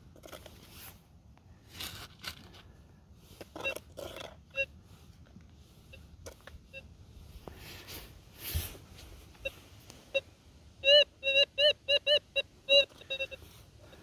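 Minelab Gold Monster metal detector sounding a quick run of short beeps, each rising and falling in pitch, about three a second and loudest in the second half, as a scoop of dirt is passed over its coil: the detector is signalling a target. Before the beeps, scraping and crunching of the scoop in gravelly soil.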